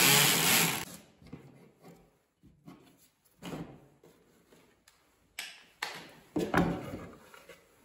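A Bosch cordless drill running as it backs a screw out of a wooden hold-down bar, stopping about a second in. Then a few short scrapes and knocks as a wooden board is shifted on the CNC machine's spoilboard.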